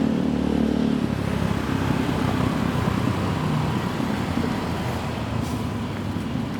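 Street traffic: a motor vehicle's engine running close by for about the first second, then a general rumble of traffic that slowly fades.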